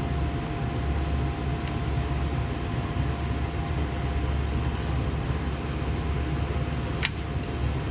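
Steady low background hum with a faint high tone, and one sharp click about seven seconds in as the hose clamps are worked back onto the hoses.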